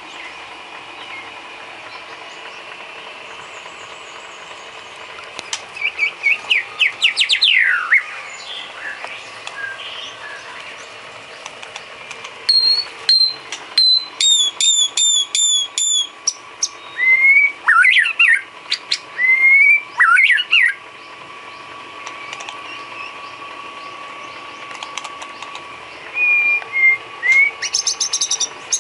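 White-rumped shama (murai batu) singing in separate phrases: quick rising runs of whistled notes, a string of repeated sharp chips, and slurred whistles, with pauses between the phrases. A faint steady hum runs underneath, alone for the first few seconds.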